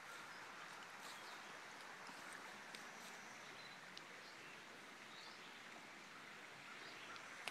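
Near silence outdoors: the faint, steady rush of flowing river water, with a few faint high chirps.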